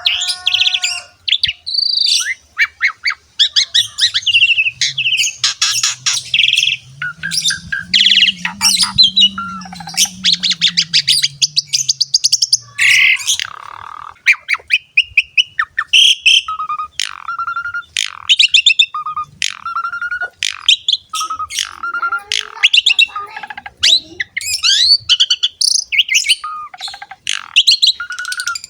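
Pied starling (jalak suren) singing in a fast, varied run of whistles, chatters and harsh squawky notes, with a short whistle repeated many times in the second half.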